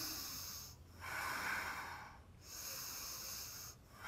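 A woman's slow, deep breathing during a yoga bridge pose: paced breaths of about a second each, with short pauses between them.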